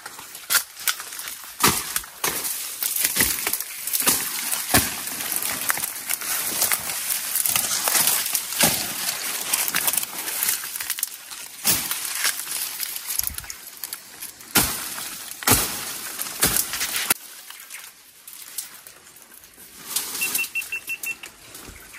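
Footsteps pushing through dense dry brush: twigs and branches snapping, dry leaves crackling and rustling in irregular bursts, quieter for a few seconds near the end.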